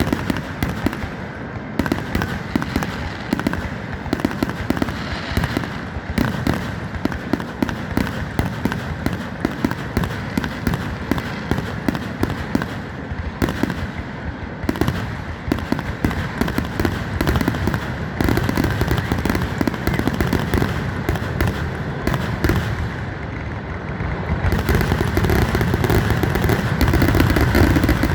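Fireworks finale: a dense, rapid barrage of bursts and crackle with hardly a gap, growing louder near the end.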